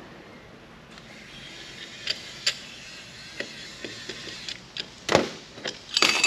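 Metal hard drive parts and screws being handled while the drive is taken apart: scattered light clicks and taps, a sharper clatter about five seconds in, and louder metallic clinking near the end.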